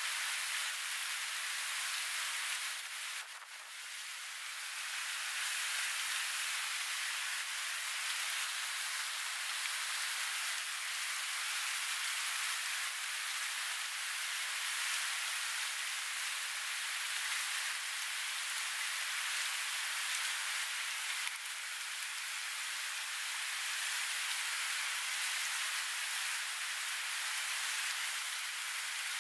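Rushing river rapids: a steady, even hiss of water, briefly softer about three seconds in.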